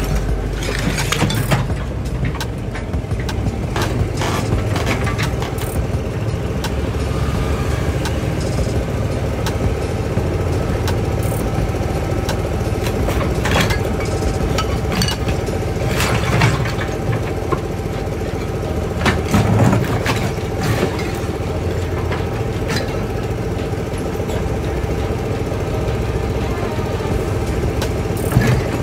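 A motor vehicle or heavy machine's engine running steadily with a low hum, with scattered sharp knocks and clanks.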